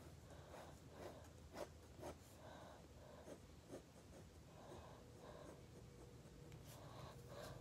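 Pen drawing on paper: faint, short scratching strokes, one after another, with an occasional sharp tick as the tip meets the page.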